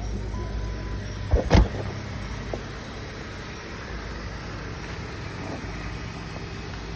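Chrysler 200 engine idling steadily with a low, even hum, broken by two loud sharp thumps close together about one and a half seconds in.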